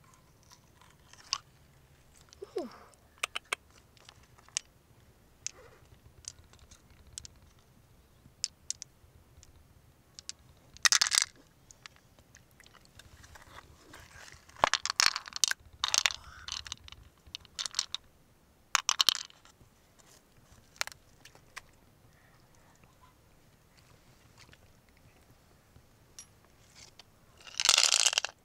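Freshwater mussel shell being handled and scraped open: scattered clicks and crunches of shell, with a few louder rasping scrapes, the longest near the end.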